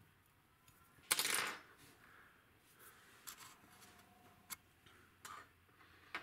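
Metal tweezers clicking and tapping while picking sticky double-sided tape off a drum pad's piezo sensor, with a short scraping rustle about a second in and a few sharp clicks later on.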